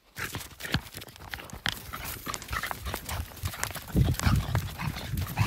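Quick footsteps on a dirt and leaf-strewn path, with many small crunches and knocks. From about four seconds in, heavier thuds come in as the pace picks up to a run.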